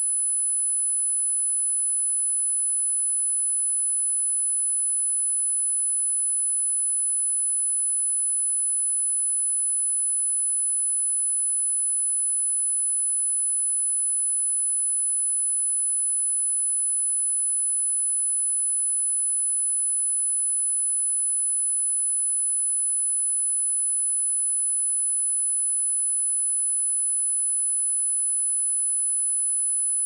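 A pure 10055 Hz sine-wave test tone, a steady high-pitched whine held at one pitch and level.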